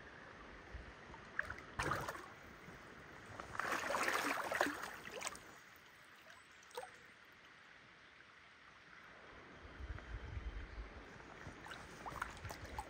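Shallow creek water splashing and sloshing: a short burst about two seconds in and a longer, louder one around four seconds in, over the faint trickle of the stream. A low rumble comes in around ten seconds in.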